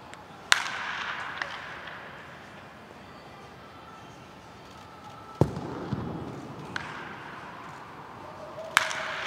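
Baseball bat hitting pitched balls three times in batting practice, each a sharp crack that echoes in the indoor hall. The second hit, a few seconds in, is duller and deeper.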